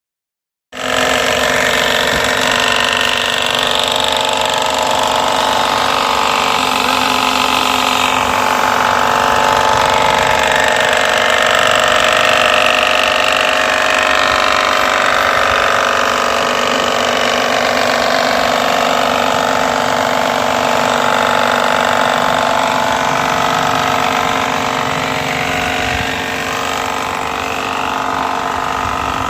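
High-pressure car washer running steadily, its motor-driven pump giving a constant mechanical drone with several steady tones. It starts abruptly under a second in.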